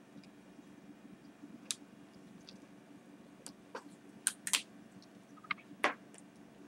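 Faint wet lip smacks and clicks, about eight scattered through the second half, as freshly lipsticked lips are pressed together and parted, over a low steady room hum.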